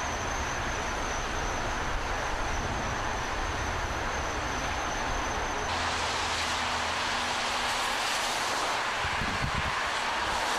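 Steady rush of swollen floodwater running down a stream. Just past halfway it shifts abruptly to a brighter hiss.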